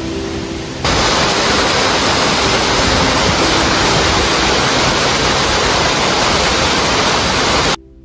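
Steady rush of a tall waterfall, loud and even, starting about a second in and cutting off suddenly near the end. Before it there is softer water noise under faint background music.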